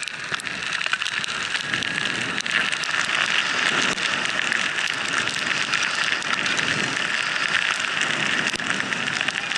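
Skis hissing through fresh powder snow on a downhill run: a steady hiss with fine crackling.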